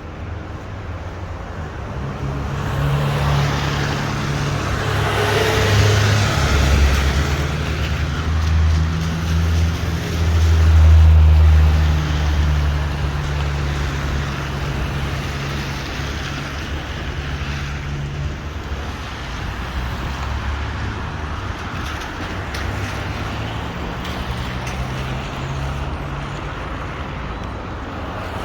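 Road traffic: a motor vehicle's engine hum swells as it passes close, loudest about ten seconds in, then fades, over a steady hiss of traffic.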